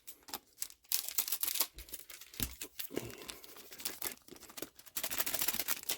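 Plastic-foil trading card booster pack wrapper crinkling and being torn open, with the loudest crackling about a second in and again near the end.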